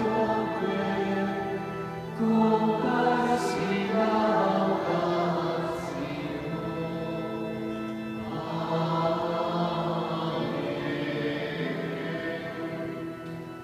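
Choir singing a sacred hymn in a reverberant church, with phrases held on long notes; the singing fades away near the end.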